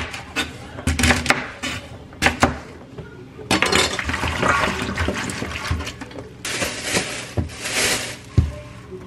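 A kitchen knife chopping garlic scapes on a cutting board, a run of quick cuts. About three and a half seconds in, this gives way to water running and splashing as the cut scapes are swished by hand in a stainless steel bowl.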